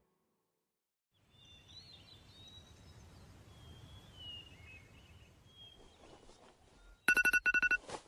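Morning ambience with birds chirping over a low background hiss. Near the end an electronic alarm starts beeping in a quick series of loud, high beeps.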